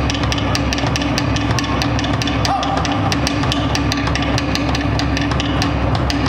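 Fast drumming with a quick, even beat over a continuous musical backing, the accompaniment to a Polynesian fire knife dance.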